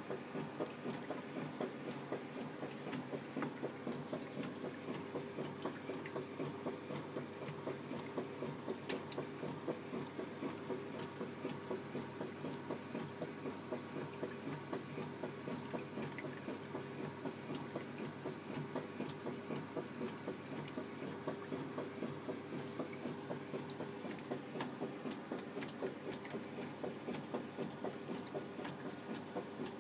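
Whirlpool top-loading washing machine on slow agitation: the motor hums steadily while the agitator strokes back and forth in an even, repeating rhythm.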